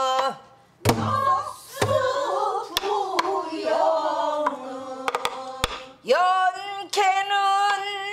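Pansori lesson singing with buk drum accompaniment: a woman's held sung note ends, a group of voices sings the line back while the drum is struck several times, and from about six seconds in the woman sings a long held, wavering line again.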